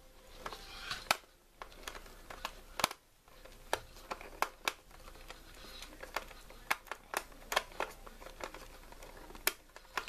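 Small screwdriver turning a terminal screw on the plastic back of a fire alarm, with fingers handling the wire: irregular small clicks and ticks.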